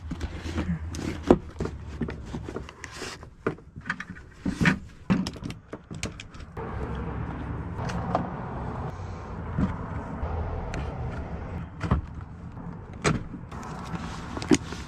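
Scattered clunks, clicks and rattles of hard objects being handled, over a steady low rumble.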